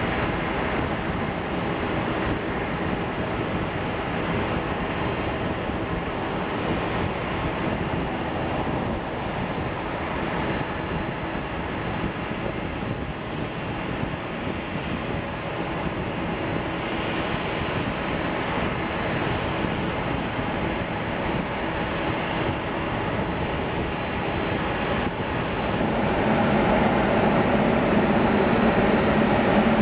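Twin turbofan engines of a Boeing 767-300ER running steadily as the jet taxis, a constant rushing whine that grows louder over the last few seconds.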